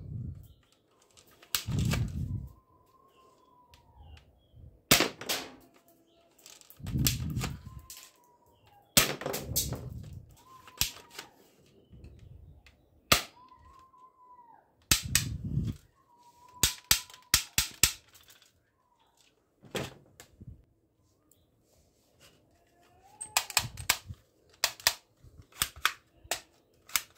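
Plastic toy guns being cocked and fired: a string of sharp clicks and snaps at uneven intervals, several with a dull thud, and a quick run of clicks near the end. A faint short tone that rises and falls comes and goes between them.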